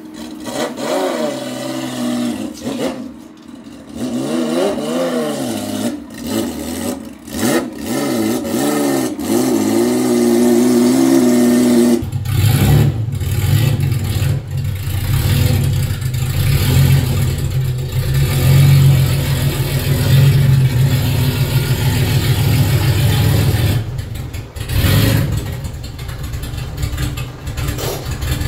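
Datsun 280Z's L28 inline-six engine revving up and down several times, then settling into a steady, loud low exhaust rumble as the car reverses slowly, with one brief rev near the end.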